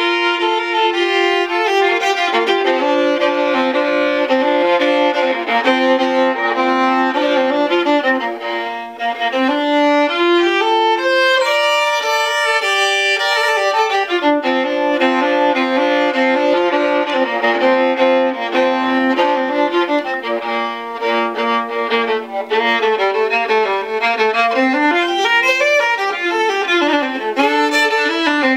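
Solo five-string violin bowed in sustained notes, often two at once, with quick rising and falling runs near the end.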